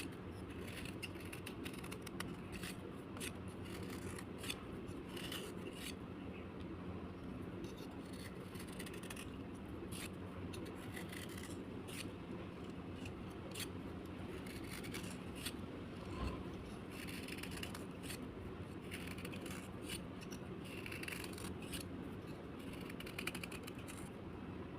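Slate being scraped by hand: irregular short scratchy strokes and crisp clicks, one after another, over a steady low hum.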